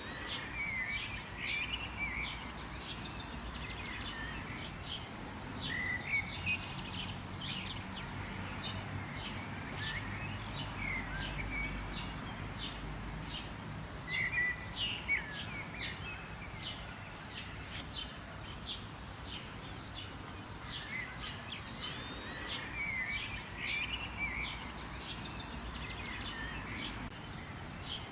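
Several wild birds chirping and calling, a rapid run of short high chirps and twitters that carries on throughout, over a steady outdoor hiss with a low rumble underneath.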